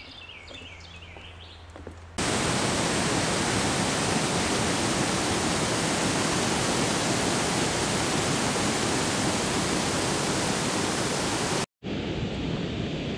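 Faint birdsong for about two seconds, then a sudden steady rush of water pouring over a dam spillway, which cuts off near the end to a quieter hiss.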